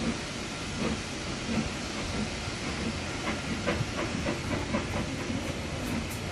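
Steam-hauled passenger train running past and away: a steady hiss and rumble, with light clicks of about three a second in the middle.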